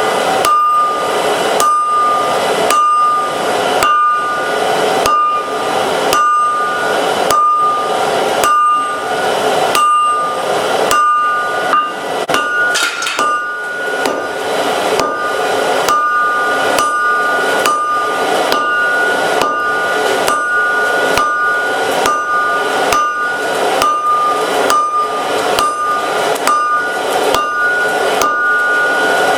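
Hand hammer striking hot steel on an anvil in a steady rhythm, a little under two blows a second, each blow leaving a short bright ring from the anvil. The smith is forging a layered pattern-welded billet.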